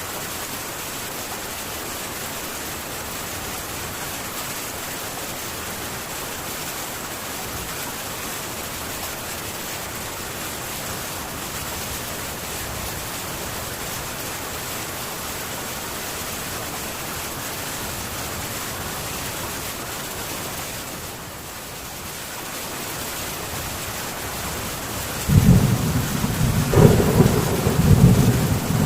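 Heavy rain falling steadily on a metal tin roof, an even hiss. Near the end, thunder breaks in suddenly with a loud, low rumble that carries on to the end.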